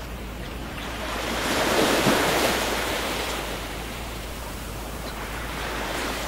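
Ocean surf washing onto a beach, a steady rush of breaking waves that swells to its loudest about two seconds in and rises again near the end.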